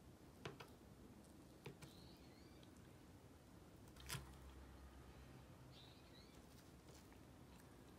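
A few soft clicks of a metal fork against a wooden plate, the loudest about four seconds in. Faint bird chirps come twice.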